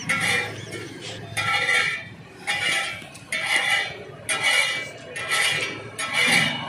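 Metal spatula knocking and scraping in a wok, about once a second, with a clanging ring on each stroke.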